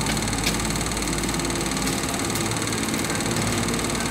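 Detroit Diesel 12V71 two-stroke V12 diesel engine running at a steady speed.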